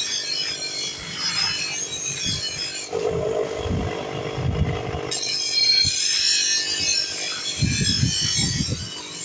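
Repeated scraping strokes on a steel knife blade as it is worked and sharpened by hand. About three seconds in, a steady hum comes in for about two seconds.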